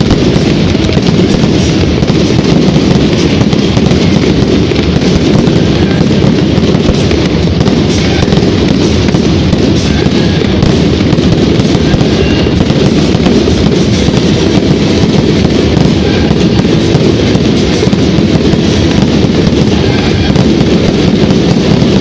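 Loud fireworks display going off in a rapid, unbroken barrage of bursts with no pause between them.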